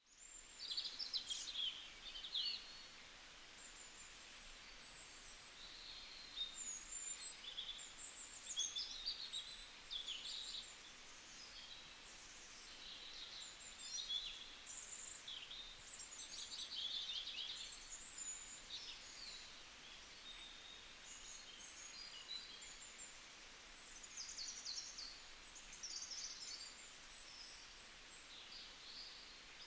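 Several small birds singing and chirping, with quick trills and high twittering calls overlapping one another, over a faint steady background hiss.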